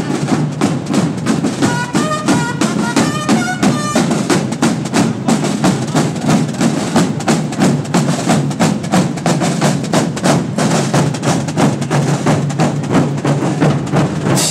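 Marching drum and cornet band playing: snare drums and bass drums beat a steady march rhythm. About two seconds in, a short phrase of stepped brass notes sounds over the drums.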